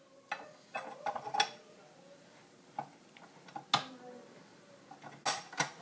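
Scattered light clicks and metal clinks as a spiral dough hook is fitted onto a KitchenAid stand mixer's beater shaft over its stainless steel bowl; the mixer is not running.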